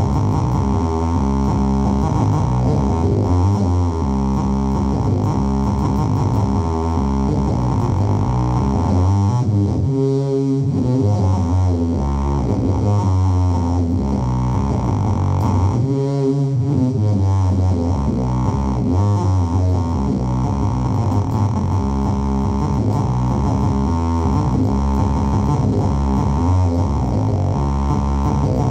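Electric bass played through a Phil Jones Bass amp with a newly made, deliberately nasty effected tone: a continuous buzzy drone of sustained notes with thick overtones, shifting in pitch every second or so.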